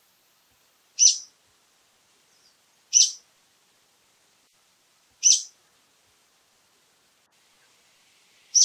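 Brown-eared bulbul giving four short, sharp, high calls, each under half a second, spaced about two seconds apart, the last near the end.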